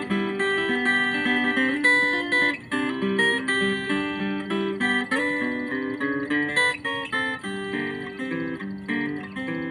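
Instrumental intro of a country song on acoustic guitar: a busy run of picked and strummed notes that starts abruptly.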